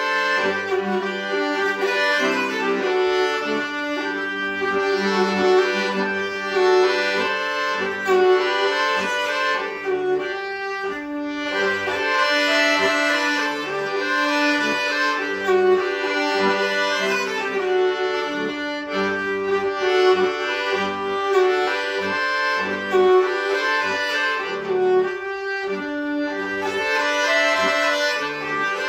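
Nyckelharpa and piano accordion playing a Swedish slängpolska together: a bowed melody over the accordion's sustained chords, with regular accordion bass notes marking the beat.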